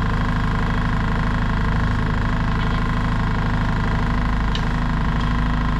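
Central Machinery 16-inch variable-speed scroll saw running unloaded at its fast setting, a steady, even mechanical hum of the motor and reciprocating blade.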